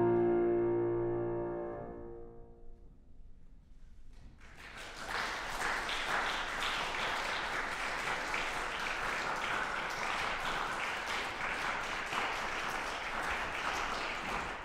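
A grand piano's final chord rings out and fades away over about three seconds. After a short hush, audience applause starts about four seconds in and goes on steadily.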